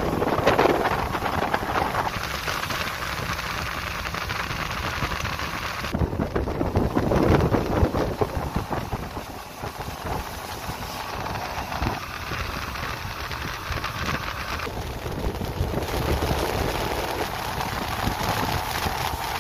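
Motorboat running fast across open water: wind buffeting the microphone over the rush of the wake and spray and the engine's drone. The mix of noise shifts abruptly several times.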